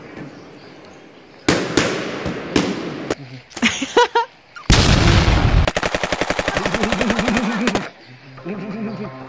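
Machine-gun firing sound: a few single shots in the first half, then from about halfway a very fast, even burst of about fifteen shots a second lasting about three seconds.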